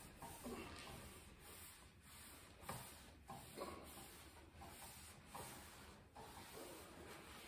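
Faint rubbing of a wad of paper towel wiped back and forth in uneven strokes across the hot steel top of a 22-inch Blackstone griddle, spreading oil to season it.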